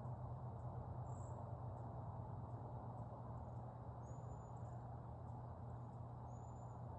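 Faint outdoor nature ambience: a steady low rumble with three short, thin, very high-pitched calls, about one, four and six seconds in.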